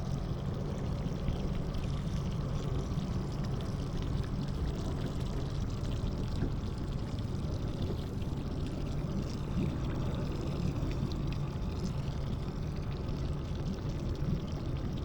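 River water rushing steadily along a boat, with a low steady hum underneath.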